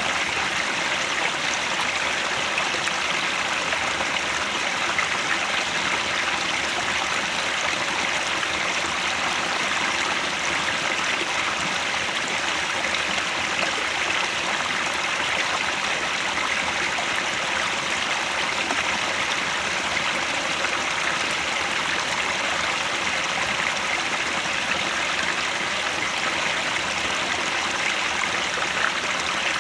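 Mountain headwater stream flowing, a steady rushing and splashing of water over rocks.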